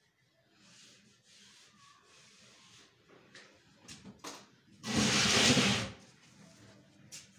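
Faint rustling and a few light clicks, then about five seconds in a loud rubbing rush of noise lasting about a second: the recording phone being handled and moved against its microphone.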